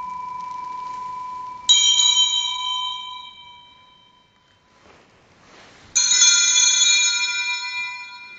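Altar bell struck twice, about four seconds apart, each ring fading away slowly, with the tail of an earlier ring fading at the start. It marks the elevation of the consecrated host at Mass.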